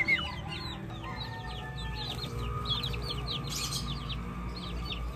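Chickens clucking amid a dense chorus of short, high, falling chirps from small birds.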